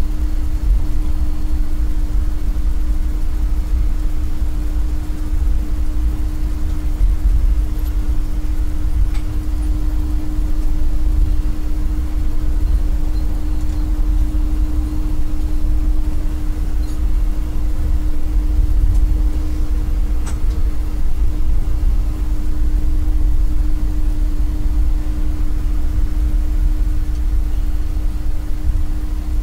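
Steady flight-deck noise of a taxiing Airbus A330: a constant low rumble with a steady hum, with its engines at taxi idle. A few faint clicks occur in the middle.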